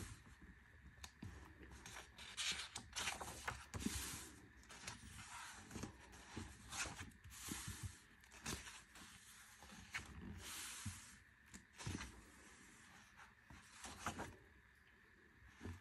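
Glossy photobook pages being turned and smoothed flat by hand: soft, irregular paper rustles and slides, coming and going.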